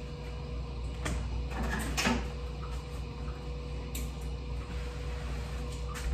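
Scattered kitchen handling noises: a few knocks and clicks of things being picked up and set down, the loudest about two seconds in, over a steady low hum.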